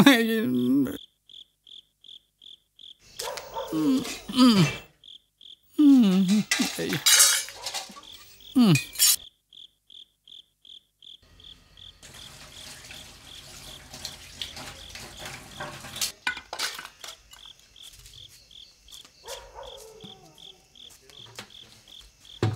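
Cricket chirping in an even pulse, about four chirps a second. From about halfway through, dishes and cutlery clink under running water at a kitchen sink. In the first half a person makes brief wordless vocal sounds twice.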